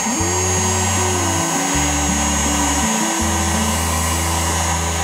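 Handheld electric heat gun running steadily, its fan blowing hot air with a rushing hiss and a thin high whine, warming the aluminium windscreen's protective film to loosen it. Background music plays underneath.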